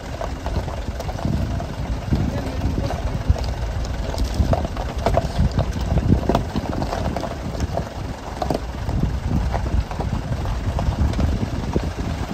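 A motor vehicle's engine running as it drives, with a steady low rumble and scattered short knocks.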